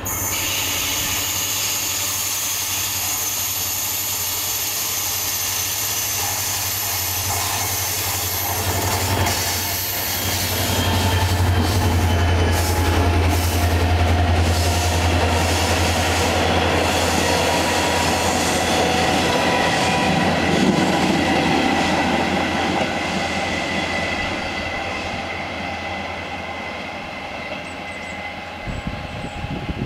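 DSB Me-class diesel-electric locomotive, with its EMD V16 engine, hauling double-deck coaches past at speed. A high-pitched whine is heard as it approaches. The deep engine drone and wheel rumble are loudest for several seconds mid-way as it passes close, then fade as the train draws away.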